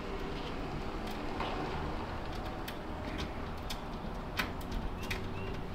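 Scattered light metallic clicks and taps, irregular and about one or two a second, as a nut is run onto a through-bolt over a washer and lock washer and tightened.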